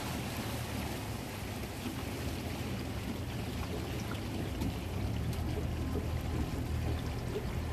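Tour boat's engine running low and steady, a little stronger about five seconds in, with water lapping and trickling against the hull.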